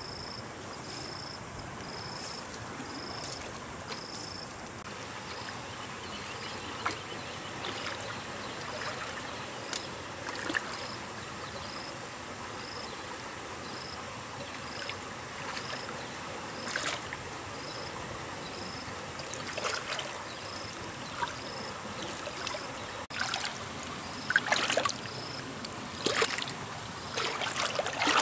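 Splashing in shallow muddy water as hands grab at thrashing catfish: scattered sharp splashes that come thick and fast near the end, over a steady trickle of running water. A high insect chirp repeats about every 0.7 s in the background through the first half.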